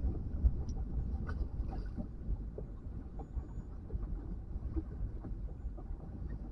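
Wind rumbling on the microphone aboard a small boat bouncing in choppy water, with a few faint scattered clicks and knocks.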